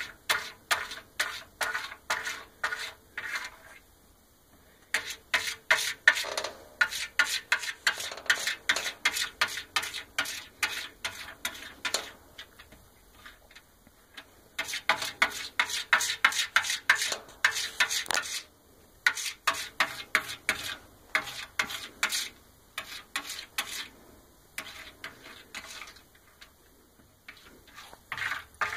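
A cat licking close to the microphone: short rasping strokes, about three a second, in runs of several seconds with short pauses between them.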